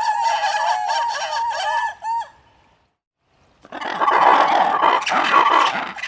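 A flock of poultry calling, many birds at once: overlapping calls for about two seconds, then a break of about a second and a half, then a louder, denser chorus of calls.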